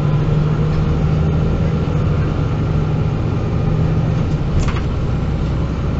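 MAN NG 313 articulated bus's diesel engine running steadily with a low hum, heard from on board. A short sharp noise about four and a half seconds in, as the engine note eases slightly.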